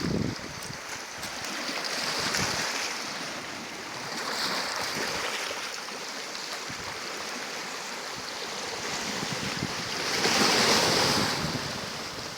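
Sea surf: waves wash in and fall back, swelling three times, the biggest near the end, with wind buffeting the microphone at the start.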